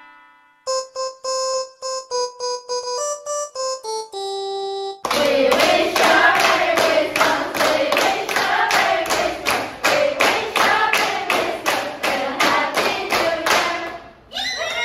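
A short melody of single keyboard notes, then a group of girls singing a Christmas carol together while clapping along in time, about two claps a second; the singing and clapping stop just before the end.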